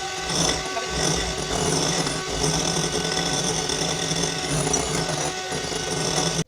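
Electric kitchen mixer running steadily with a motor whine, then cutting off abruptly at the end.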